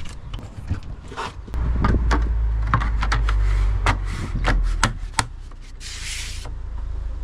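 Clicks and knocks of the plastic front cover of a myenergi Zappi EV charger being fitted and pressed into place by hand, over a low rumble, with a brief hissing scrape about six seconds in.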